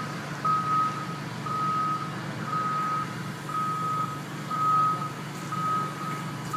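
Backhoe's reversing alarm beeping about once a second in a single steady tone, over the low running of its diesel engine.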